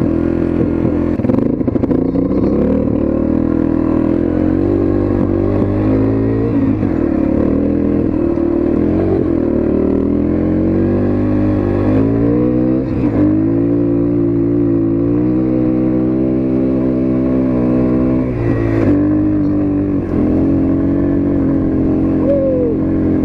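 Dirt bike engine running under load as the bike is ridden across a bumpy pasture, its pitch climbing and falling with the throttle, with a few sharp drops and re-climbs.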